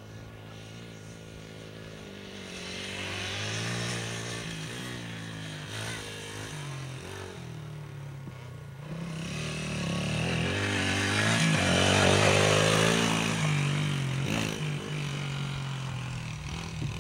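Dirt bike engine revving up and dropping back again and again as the rider works the throttle and gears, growing louder as the bike comes nearer and loudest a little past the middle.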